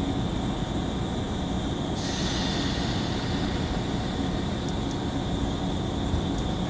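A JR 185 series electric train car running on the rails: a steady low rumble of wheels and running gear. About two seconds in, a higher hiss joins it and holds, and a few faint clicks come later.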